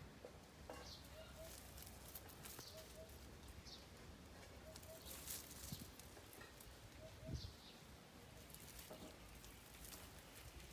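Quiet rustling of leaves and light snapping of twigs as a young monkey climbs through a bush. Under it, a faint short two-note call repeats every couple of seconds.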